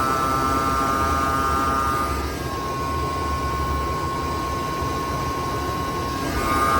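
2022 Tesla Model 3's electric A/C compressor running with a steady whine: several close tones near 1 kHz narrow to a single tone about two seconds in and spread out again near the end. The noise goes with warm A/C and is the sign of an internal compressor failure.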